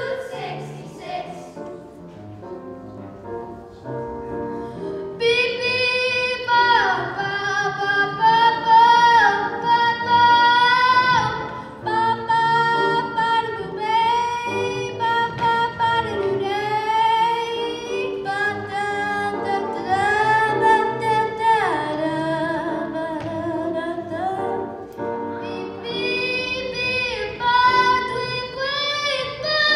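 Middle school show choir singing with instrumental accompaniment: young voices, led by singers on handheld microphones. The first few seconds are quieter accompaniment, then the voices come in strongly with sliding, swooping notes.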